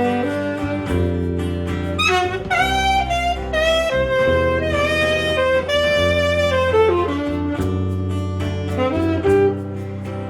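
Saxophone playing a jazzy melody of long held notes over a low bass line, as an instrumental passage of a live song.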